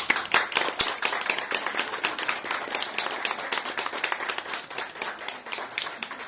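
A small audience applauding, with individual hand claps easy to pick out. The clapping starts just before and slowly thins out toward the end.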